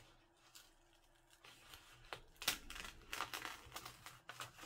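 A stuck-down paper envelope being peeled back up off a paper journal page. Little is heard at first; from about halfway through comes a run of crackly rustles and small ticks as the paper comes away.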